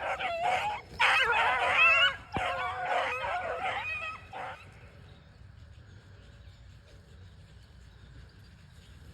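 Beagles baying as they work a scent track: several overlapping howls that rise and fall for about four and a half seconds, then they die away.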